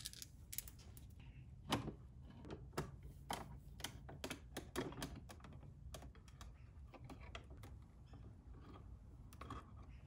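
Faint, irregular clicks and taps of small hand tools and a plastic electrical outlet being handled at a wall box, thickest in the first six seconds.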